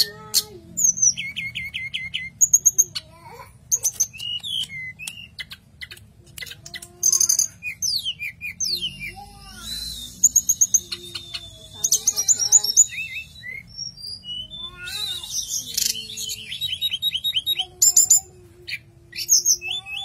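Hill blue flycatcher (tledekan gunung) singing a long, varied song of clear whistles, fast rattling trills and gliding notes, phrase after phrase with short gaps between.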